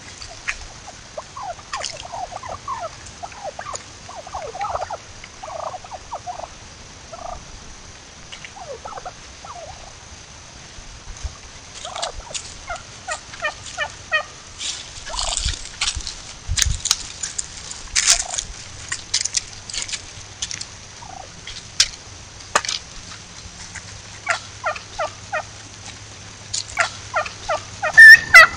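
Wild turkey hens calling: soft short calls at first, then from about twelve seconds in, runs of repeated yelps with sharp clicks among them, and a loud, higher-pitched kee-kee burst near the end. These are yelp and kee-kee calls for a lost hen separated from the flock.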